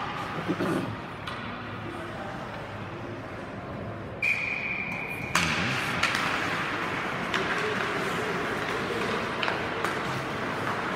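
Ice rink during a faceoff: a single high steady tone lasting about a second, about four seconds in. Then a louder wash of skates scraping the ice, with sharp clacks of sticks.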